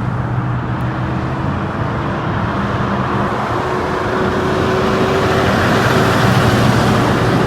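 Highway traffic passing close by: the tyre roar and diesel engine of a passing semi-truck build to a peak about six to seven seconds in. No horn sounds.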